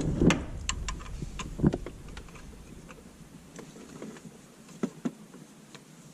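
Scattered metallic clicks and knocks of hand tools and bolts being worked on a shifter mount, busiest in the first two seconds, then a few faint isolated clicks.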